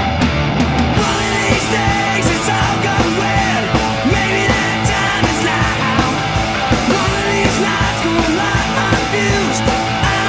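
Rock background music with a steady beat.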